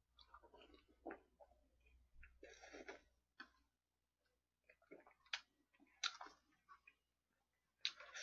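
Faint scattered clicks and mouth noises of drinking from a small paper cup and setting it down on the table, with a short soft hiss about two and a half seconds in.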